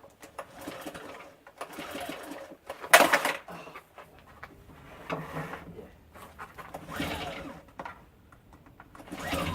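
Small inverter generator engine cranked repeatedly by its recoil pull-starter: a burst of mechanical clatter with each pull, about every couple of seconds, the loudest about three seconds in.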